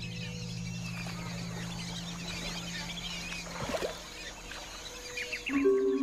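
Wetland ambience of many small bird calls chirping over a low steady drone. Near the end a sustained low chord of several held notes comes in, the start of the documentary's music score.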